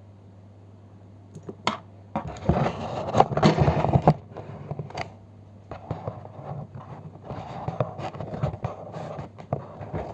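Packaging being handled: a few sharp clicks, then about two seconds of loud crinkling and scraping, followed by quieter scraping and light taps. A low steady hum runs underneath.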